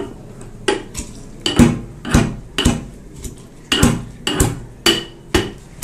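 Metal pestle pounding in a small steel mortar, crushing boiled dried red chillies: sharp metallic clinks about twice a second at an uneven pace, each with a brief ring.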